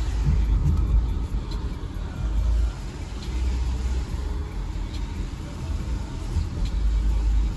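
Low, uneven rumble of a car driving along a road, heard from inside the car.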